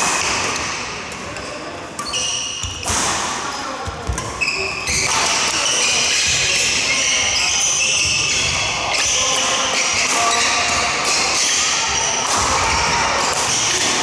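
Badminton doubles rally: sharp racket strikes on the shuttlecock and court shoes squeaking on the floor as players move, over a busy hall din with voices.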